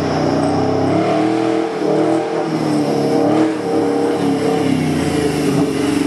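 Off-road 4x4's engine running hard, its revs rising and falling repeatedly.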